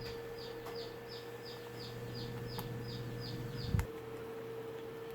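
A bird calling with a quick series of short, falling chirps, about three a second, that stops near the end just before a single knock, over a steady electrical hum.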